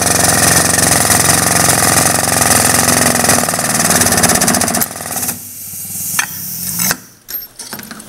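Air-hydraulic pump running with a loud, fast, even chatter as it pressurises the hydraulic cylinder that pulls the mandrel through the hose fitting. It stops about five seconds in, leaving quieter broken sounds and a few sharp clicks.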